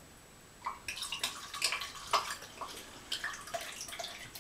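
Rum being poured from a glass bottle, glugging out of the neck and splashing, in short irregular gurgles that begin about a second in.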